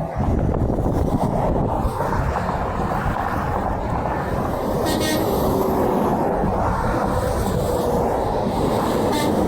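Steady rumble of heavy interstate highway traffic, with semi trucks passing.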